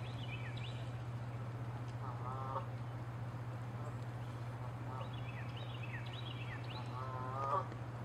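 Canada geese calling: two short honks, about two seconds in and again near the end, the second one louder, with quicker high-pitched chirping calls in between and a steady low hum underneath.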